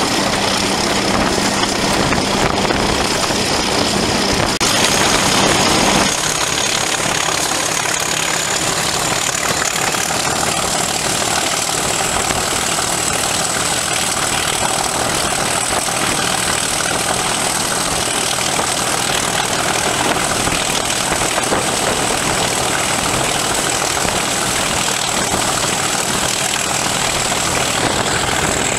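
Class 37 diesel-electric locomotive's English Electric V12 diesel engine working under load while hauling a train, with a high whistle above it that steps up about five seconds in. About six seconds in the deep engine note falls away, leaving the engine and rolling noise running steadily.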